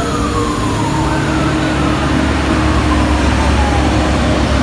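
Mercedes-Benz coach's diesel engine rumbling as the bus pulls away, under a siren-style wail that falls slowly in pitch and starts again with a rise about a second in.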